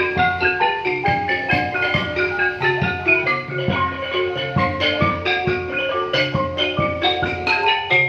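Khmer traditional ensemble playing: quick running notes on a roneat (Khmer xylophone), with regular deep drum strokes underneath.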